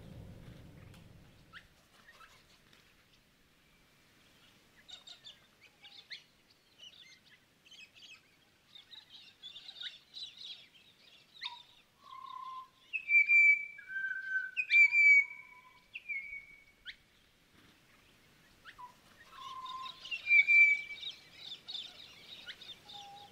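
Birdsong: a mix of chirps, quick sweeps and short clear whistles. It starts faint, and louder whistled notes come about halfway through and again near the end.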